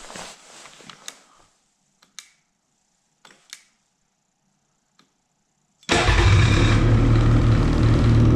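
A few light clicks, then about six seconds in the Ski-Doo MXZ X's 850 E-TEC two-stroke twin-cylinder engine fires up and runs steadily.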